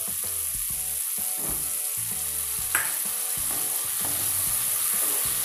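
Chopped tomatoes sizzling in mustard oil and spice masala in a kadai while a wooden spatula stirs them, with one brief knock about halfway through.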